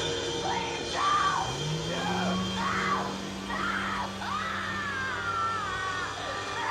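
Horror film soundtrack: a woman screaming again and again, cry after cry, over eerie music and a steady low drone that rises in pitch about a second and a half in.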